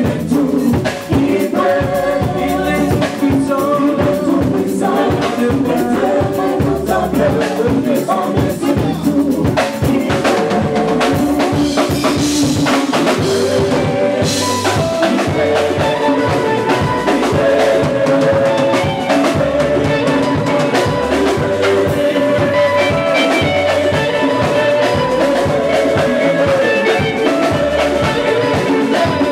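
Live gospel band music: a busy drum kit and hand-drum percussion driving the beat under keyboard and electric guitar, with a group of voices singing.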